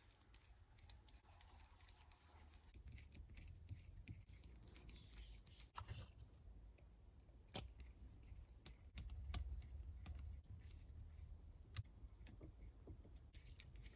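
Faint scattered clicks and scrapes of a precision hex screwdriver and small plastic and metal parts being handled as a miniature RC crawler's rear portal axle is screwed into place, over a low steady hum.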